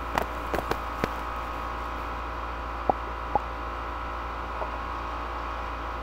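Steady electrical hum and room noise, with a handful of short clicks in the first second and two more about three seconds in: mouse and keyboard clicks while values are typed into a spreadsheet-like table.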